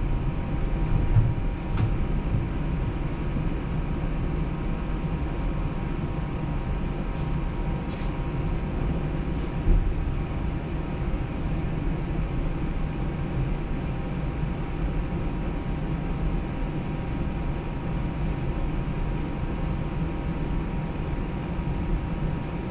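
Low-floor Flexity Outlook streetcar running along its track: a steady low rumble of wheels on rails with a faint steady electric whine. There are a few light clicks and one louder knock about ten seconds in.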